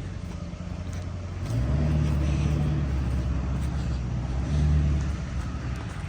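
An engine running with a low, steady hum that grows louder about a second and a half in, then eases off near the end.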